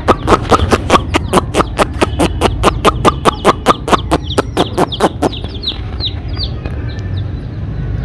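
Young chicks peeping: a fast, even run of short cheeps, about five a second, that thins out and fades about five or six seconds in.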